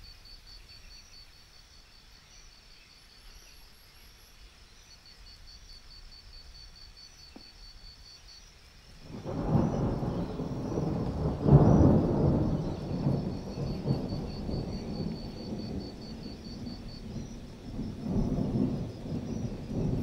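Crickets chirping steadily in a quiet night ambience; about nine seconds in, a long roll of thunder builds suddenly, peaks a couple of seconds later and rumbles on, swelling again near the end.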